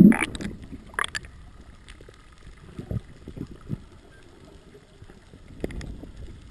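Water splashing and gurgling around the microphone, loudest right at the start with a shorter splash about a second in, then quieter sloshing with a few soft low sounds.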